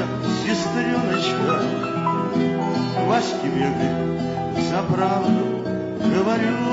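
Acoustic guitar music with other instruments playing the accompaniment of a Russian courtyard song, the notes held and running on without a break.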